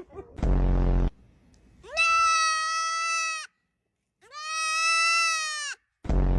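Goat bleating: a short, deep bleat, then two long, drawn-out, high-pitched bleats held at a steady pitch, then another short, deep bleat near the end.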